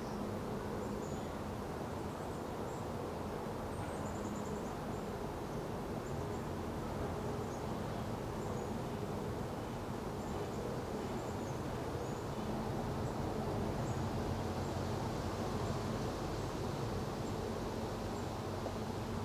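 Steady outdoor ambience: a constant low rumbling hum with faint, short high chirps scattered throughout.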